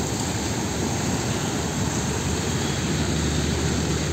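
Diesel engine of a MAN tractor unit hauling an LPG tank semi-trailer as it drives past, a steady engine drone mixed with road and tyre noise.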